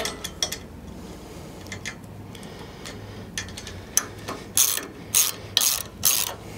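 Socket ratchet wrench clicking as it tightens down a bolt and nylon lock nut on a hook lift's safety tab: a few scattered clicks at first, then four ratcheting strokes about half a second apart near the end.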